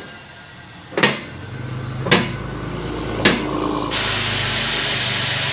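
Three sharp clicks about a second apart over a low steady hum, then a loud, even hiss of air or spray for the last second and a half.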